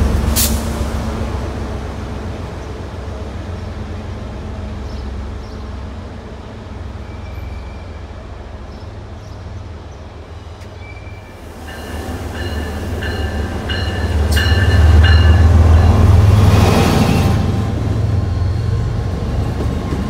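MBTA commuter rail trains passing. One train fades away over the first couple of seconds, then another rolls in with a low, loud diesel rumble that is loudest a little past the middle. Intermittent high wheel squeal comes as the coaches take the curve.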